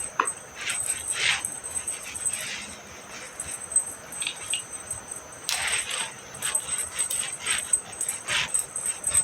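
Stray cats making short meows and whines at irregular intervals.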